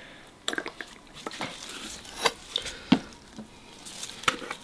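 Light, irregular clicks and knocks of kitchen utensils and containers being handled, about half a dozen in all.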